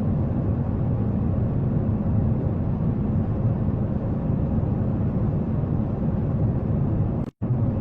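Steady low rushing noise of an airliner cabin in flight, dropping out for a split second near the end.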